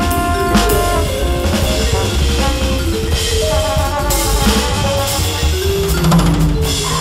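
Jazz four-beat swing groove played on a Roland V-Drums electronic drum kit, its sampled drum sounds heard over a sequenced backing of held chords and moving bass notes.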